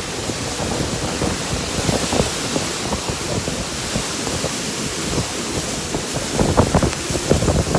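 Heavy rain and strong wind of a summer thunderstorm, with gusts buffeting the microphone; the gusts grow stronger near the end.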